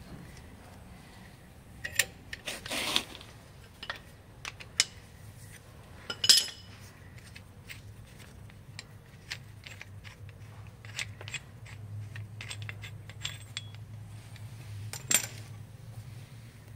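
Metal hand tools and parts clinking and scraping during rear brake pad work, in scattered sharp clinks with a brief scrape about three seconds in and two louder clanks later on. A low steady hum runs underneath and is stronger in the second half.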